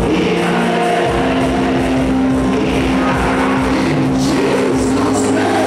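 Church worship music of long held chords and bass notes, with the congregation's voices praying aloud over it.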